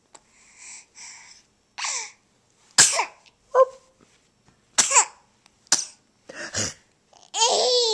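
A string of short, sharp cough- and sneeze-like silly noises made with the voice, after two soft breathy huffs, answered near the end by a baby's high laugh.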